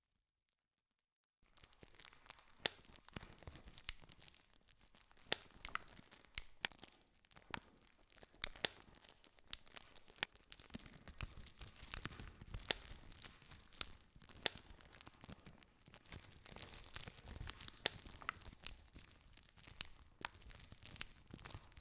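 Campfire burning: wood crackling and popping in irregular sharp snaps of varying loudness over a soft steady hiss of flames. The sound cuts in after about a second and a half of dead silence.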